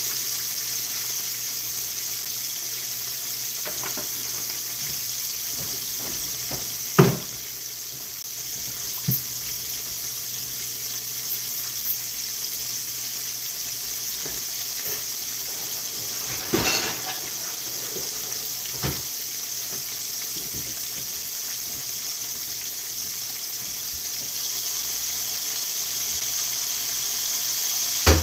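Cornmeal-battered catfish fillets frying in hot oil in a skillet, left undisturbed to build a crispy crust: a steady sizzle with occasional sharp pops of spattering oil, the loudest about seven seconds in and a few more past the halfway mark.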